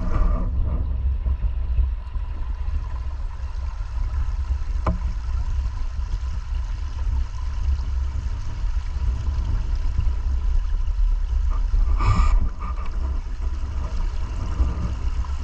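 Steady low rushing rumble of river water flowing, with a sharp click about five seconds in and a brief louder rush about twelve seconds in.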